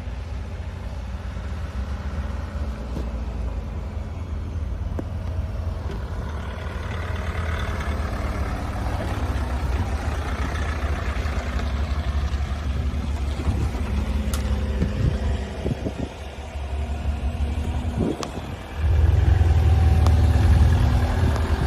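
Vehicle engines running at low revs, a steady low rumble with no siren or horn. About nineteen seconds in, the rumble suddenly gets louder and stays that way.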